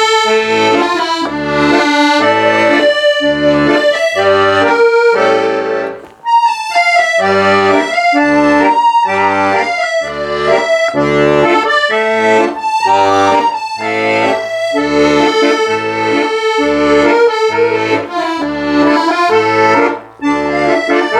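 Solo accordion playing a melody over an even left-hand bass-and-chord accompaniment, breaking briefly between phrases about six seconds in and again near the end.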